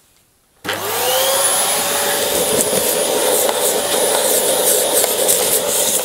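Vacuum cleaner switched on about half a second in, its motor whining up to speed and then running steadily. It sucks lint and residue out of a tumble dryer's condenser unit, with light crackling from debris going up the hose.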